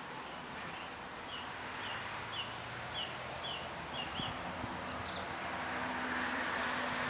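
Outdoor garden ambience: a steady rushing background with a small bird chirping about seven times in quick, even succession in the first half. A broad rushing swell builds toward the end.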